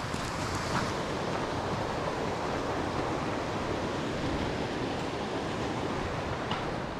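Steady rushing of water, like a mountain creek or cascade close by.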